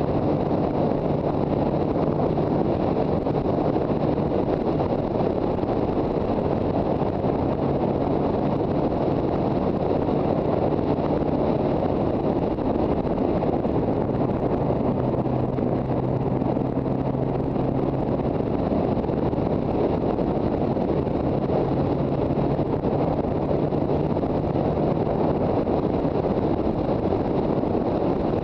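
Wind buffeting the microphone of a moving motorcycle, with the steady note of the Yamaha TZR250's two-stroke engine underneath, cruising at a nearly constant speed with only slight changes in pitch.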